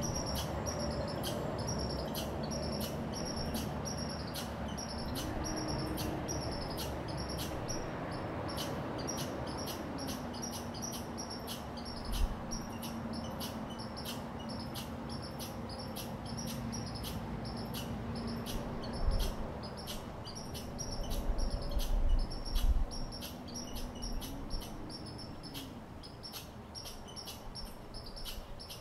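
Eastern chipmunk giving its alarm chip call: a long series of sharp, high chips repeated evenly at about two to three a second.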